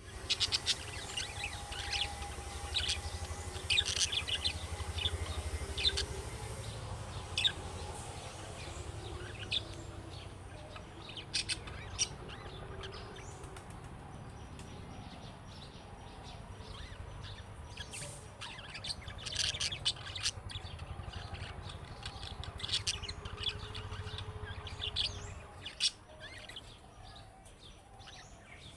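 Budgerigar chirping: many short, sharp chirps coming in irregular clusters, over a low hum that drops away near the end.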